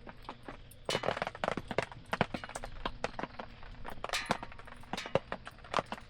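Wood campfire crackling, with many irregular sharp pops and snaps and short hissing flare-ups about a second in and again about four seconds in.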